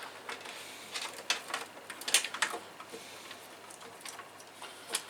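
Irregular light clicks and short scrapes as a slim case fan is lowered into a computer case, its frame knocking and rubbing against the inside of the case, with a quick run of clicks about two seconds in and again near the end.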